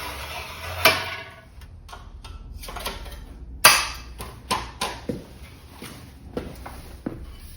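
Sheet-metal pieces and tools knocking and clanking during cutting and folding on a flange brake: a run of sharp metallic knocks, some ringing briefly, the loudest about three and a half seconds in.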